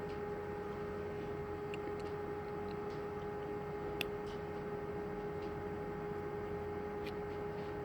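A steady humming tone with a handful of light clicks from small lock-cylinder parts being handled, the sharpest about four seconds in.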